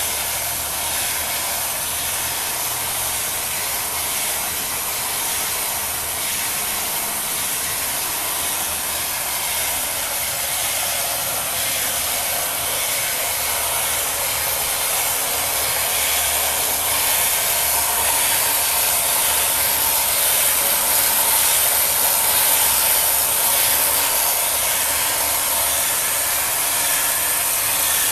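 Small battery-powered electric motors of a painted wooden kinetic sculpture running, a steady whirring hiss that grows a little louder in the second half.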